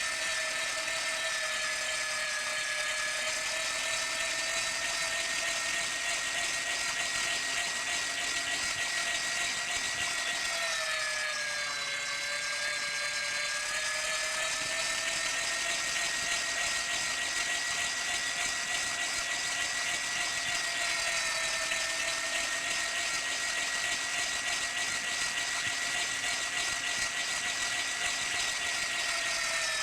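Meat grinder motor running with a steady whine. Its pitch sags briefly about twelve seconds in, then comes back up to speed.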